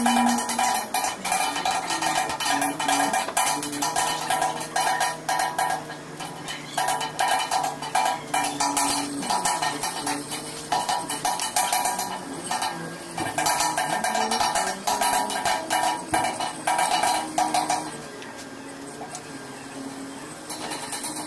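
Rapid, repeated scraping and clinking of hand tools on the metal back plate of an air compressor as it is cleaned, with a metallic ring. The scraping comes in spells and stops near the end.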